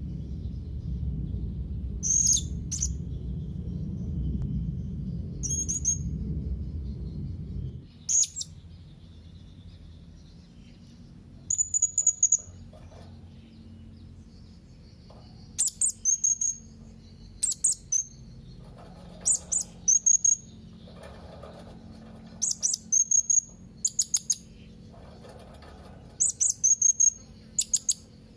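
Young blue-crowned hanging parrot calling out to rivals: shrill, very high-pitched calls in quick clusters of two to five notes, repeated every second or two. A low rumble sits under the calls and stops about eight seconds in.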